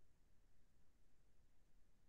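Near silence: faint low background noise, room tone of an open microphone.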